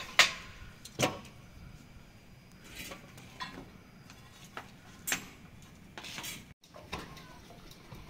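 A series of sharp, irregular knocks and clatters, about eight in all, the loudest right at the start.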